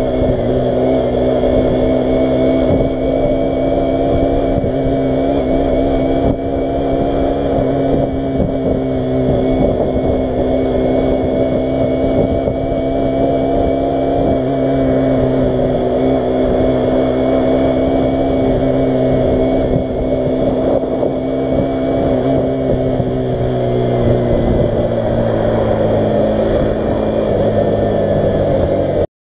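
125cc motorcycle engine running steadily at cruising speed, heard from on the bike with wind rumble on the microphone; the engine note drops slightly near the end as the bike slows.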